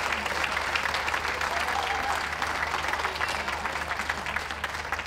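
Outdoor audience applauding, a dense patter of many hands clapping that eases off near the end.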